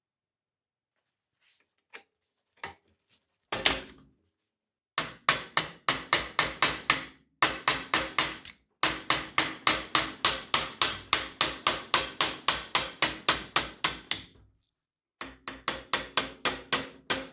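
Rapid, steady hammer blows on steel, about four to five a second, driving a cross pin out of an old Handyman farm jack. A few light taps and one harder knock come first. The hammering runs for about ten seconds, pauses briefly, then starts again near the end.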